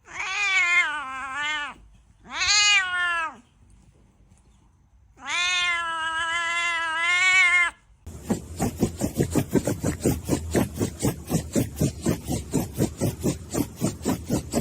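A cat meowing: three long, drawn-out meows, the third the longest. About eight seconds in the meows give way to a fast, even run of short pulses, about four or five a second.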